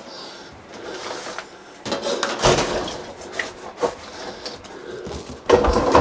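Knocking, scraping and clattering from inside the cabinet of an air handler being worked loose for removal. A loud knock about five and a half seconds in leaves a ringing tone behind it.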